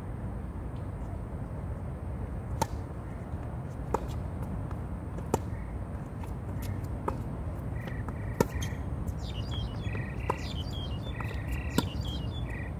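Tennis rally on a hard court: sharp pops of the ball off the racquets and court, about one every second and a half, the loudest a little past the middle. Birds chirp repeatedly through the second half.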